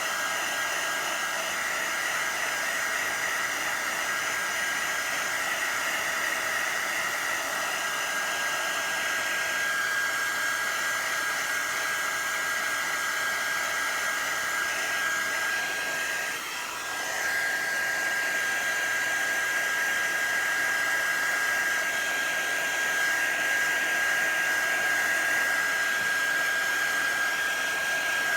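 Handheld embossing heat gun running steadily, its fan blowing with a high, steady whine; the sound dips briefly about halfway through.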